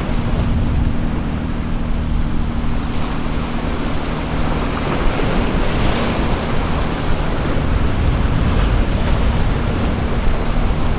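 Ocean surf breaking and washing over rock-jetty boulders, with strong wind buffeting the microphone. A bigger wave crashes about halfway through.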